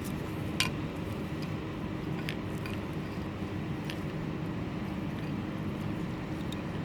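A few small plastic clicks from the wiring connectors of LED number plate light units being handled and plugged together, over a steady background hum.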